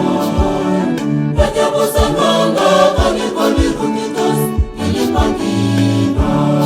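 Church choir singing a gospel song over a steady beat of about two strokes a second.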